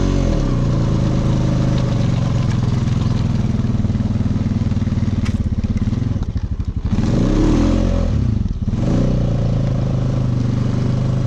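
Four-wheeler (ATV) engine running under throttle as it pushes through deep snow, its revs dipping and picking up again a couple of times in the second half.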